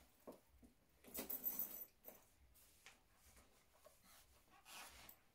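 Faint rustling and handling noises from clothing and a handbag being picked up: a burst lasting about a second, about a second in, a few light clicks, and a softer rustle near the end.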